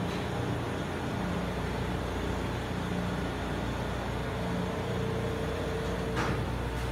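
Steady ship's engine-room machinery noise: a constant drone and hum, with a faint steady tone joining about four seconds in and a short click about six seconds in.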